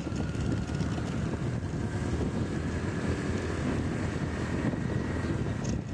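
Wind rushing and buffeting over the microphone of a moving vehicle, with a low running rumble and a faint steady whine underneath.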